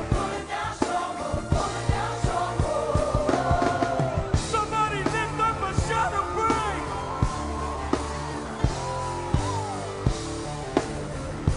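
A live band playing gospel rock with a steady drum beat and bass, and a voice singing and calling out over it, mostly through the middle of the stretch.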